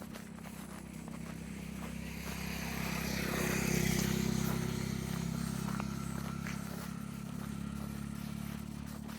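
A motor vehicle's engine running with a low, steady hum, growing louder to a peak about four seconds in and then slowly fading, as it passes by.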